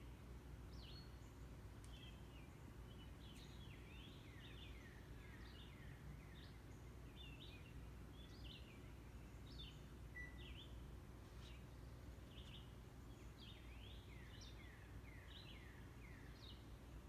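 Faint chirping of small birds: many short calls, a lot of them sliding downward, over a low steady background hum.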